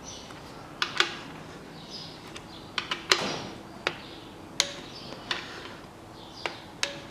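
Click-type torque wrench with a ratchet head tightening engine connecting-rod cap bolts to 24.5 N·m: about ten sharp metallic clicks at irregular intervals as the ratchet is worked and the wrench releases at torque.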